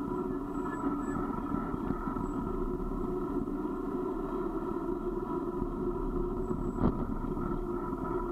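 Steady ride noise of a vehicle coasting down a rough mountain road: tyre rumble on the gravelly asphalt with a constant hum. A single sharp knock comes about seven seconds in.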